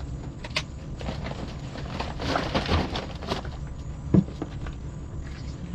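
Rummaging through trash in a dumpster: plastic bags and packaging rustle and cardboard and packaged goods knock about, with one sharp knock about four seconds in, over a steady low hum.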